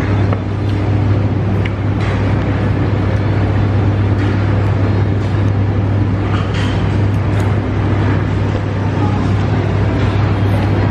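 Eatery background noise dominated by a steady, loud low mechanical hum, with a few faint clinks.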